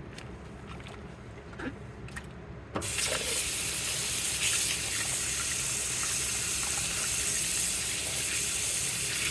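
A few light knocks, then a water tap turned on about three seconds in, running steadily into a sink or basin.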